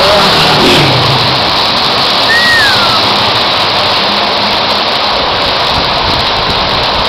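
Very heavy downpour: a dense, steady hiss of rain pouring down. About two and a half seconds in, a brief falling whistle-like note sounds over it.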